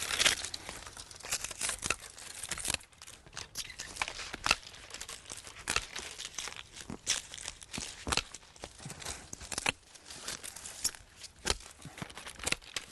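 Pruning loppers snipping off small branches, with irregular sharp snaps and the rustle and crackle of leafy twigs being pulled and falling.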